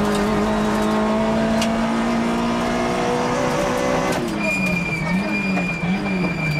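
Rally car engine heard from inside the cabin, held at high revs on full throttle, then dropping and wavering about four seconds in as the car slows for a bend. A steady high-pitched squeal starts at the same moment and runs on through the corner.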